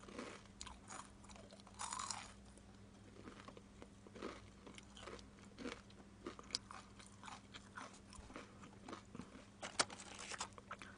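A person chewing a mouthful of food close to the microphone: a faint, irregular run of small clicks and crunches.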